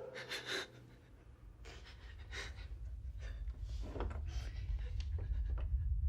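A person's quick, panting breaths, coming in short bursts, over a low rumble that slowly grows louder.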